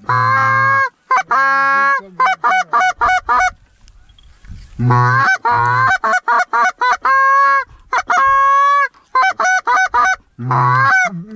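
Canada goose call blown by a hunter in runs of honks and short clucks: a couple of long honks, a fast string of clucks, a pause about four seconds in, another run with two drawn-out honks, and a last quick burst near the end. The honks are loud and single-voiced, not a flock.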